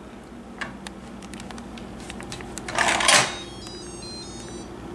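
Instant Pot electric pressure cooker lid being twisted open: a short scrape of the lid turning about three seconds in, followed straight away by the cooker's quick electronic melody of high beeps. A low steady hum runs underneath.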